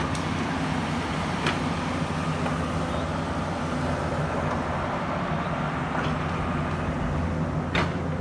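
Excavator's diesel engine running steadily, with two sharp knocks, a faint one about a second and a half in and a louder one near the end.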